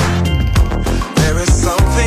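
Background music: an upbeat pop/R&B-style track with a bass line and a steady beat.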